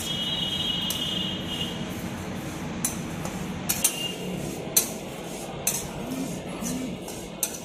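Metal spatula stirring dry-roasting sesame seeds in a metal kadhai, with irregular sharp clinks as it scrapes and knocks against the pan, about ten in all.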